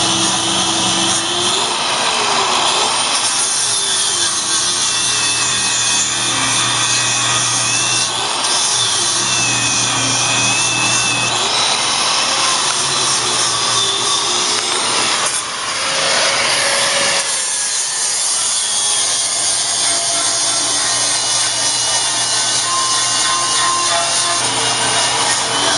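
Electric angle grinder grinding the welded joints of a steel square-tube frame smooth, a continuous harsh grinding noise with the motor's pitch wavering up and down as the disc is pressed into the metal.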